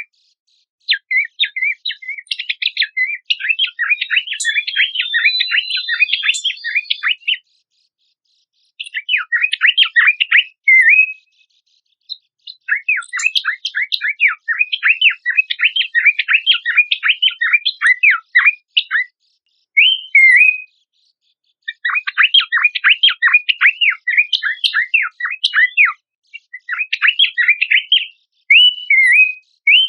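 Recorded songbird singing in long phrases of rapid, sharply down-slurred chattering notes, broken by short pauses, as used for training songbirds.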